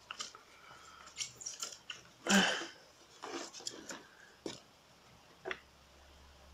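A hard plastic toy boat hull being handled and turned over, with crumbled styrofoam packing stuck to it: irregular crackles, scrapes and crunches, the loudest a little after two seconds in.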